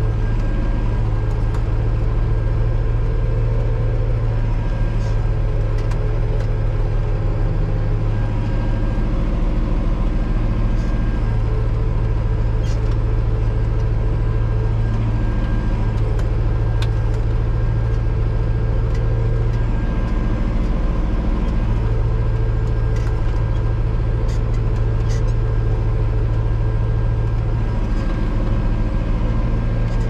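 Valtra N91 tractor's four-cylinder diesel engine running steadily under ploughing load, heard from inside the cab. Its note shifts a few times, with a few faint ticks and rattles over it.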